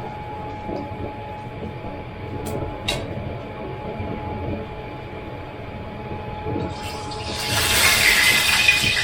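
Hot cooking oil in a pan sizzling loudly, starting about seven and a half seconds in, over a low steady rumble with a faint steady whine.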